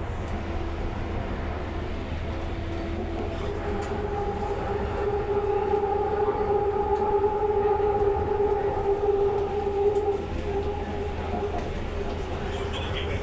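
Metro train running between stations, heard from inside the carriage: a steady low rumble with a two-note hum that grows louder about four seconds in and eases off after about ten seconds.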